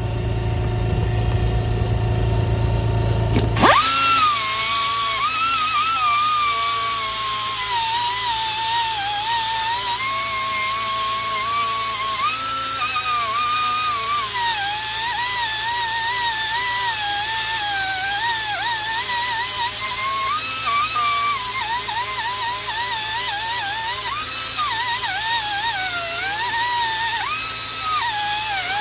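Ingersoll Rand pneumatic angle grinder with a zip cut-off disc grinding corrosion off the edge of a used wheel hub; its whine rises and dips as the disc bites and eases. It starts suddenly about three and a half seconds in, after a low steady hum.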